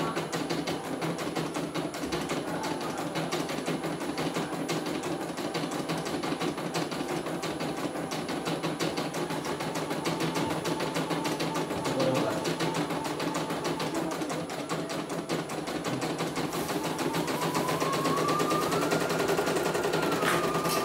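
CNY computerized embroidery machine stitching a design: a rapid, steady needle clatter as the hoop steps under the needle. Near the end a tone rises and holds over it.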